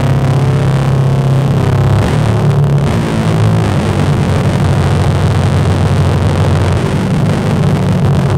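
A loud, steady low drone under a hiss, its low notes shifting about two seconds in.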